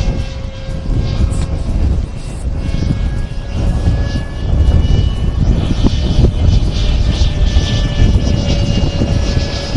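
Strong wind buffeting the microphone, swelling and easing, over the thin steady drone of a radio-controlled model airplane's motor and propeller, its pitch wavering slightly.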